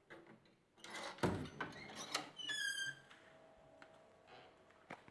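Knocks and clatter of a door being handled, then a short high squeak of the hinge as the balcony door swings open, lasting about half a second near the middle.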